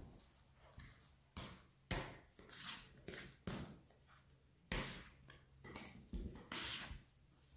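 Plastic dough scraper cutting through wet pizza dough and scraping on a stainless steel worktop, with hands pulling off and handling the sticky dough: a run of short, irregular scrapes and sticky tearing sounds.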